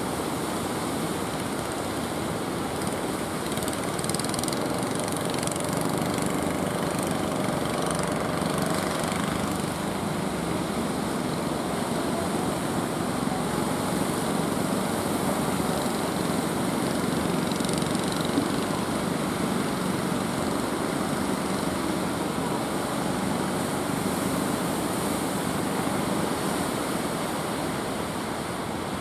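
Small fishing boat's engine running steadily over the rush of surf breaking on the shore.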